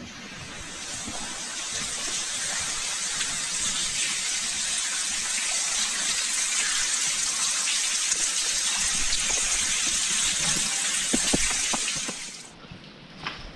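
Water raining down from the roof of a wet railway tunnel, a dense steady hiss that builds over the first second and cuts off sharply near the end. A few short knocks sound shortly before it stops.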